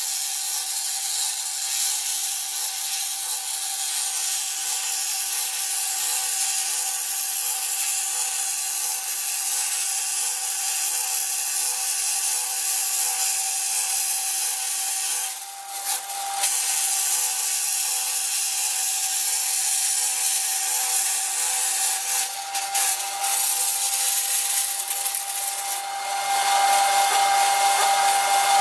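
Small homemade bandsaw running, its blade cutting along the edge of a strip. Under the hiss of the cut there is a steady whine from the electric-bicycle motor and its straight-cut pinion reduction gear. The cut eases briefly about halfway through, and it grows louder near the end.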